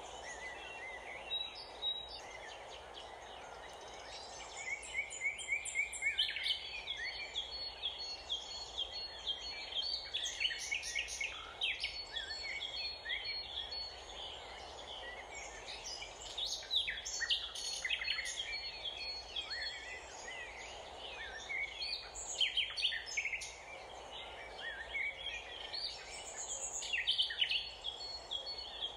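Many small birds chirping and twittering in a dense, continuous chorus of short high calls, over a faint steady background hiss.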